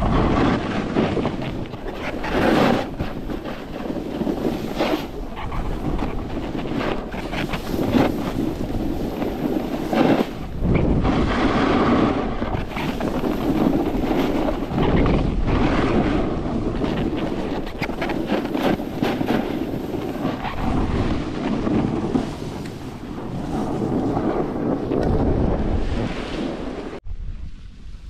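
Wind buffeting a helmet or chest-mounted action camera's microphone during a snowboard run, mixed with the board's base and edges hissing and scraping over packed, chopped-up snow in uneven surges. About a second before the end it drops suddenly to a much quieter hush.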